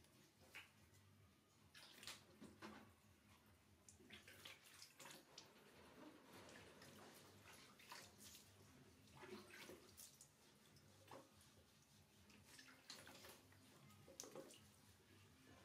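Faint splashing and trickling of water as a hand scoops and pours water over a baby monkey in a plastic basin, with short splashes every second or so.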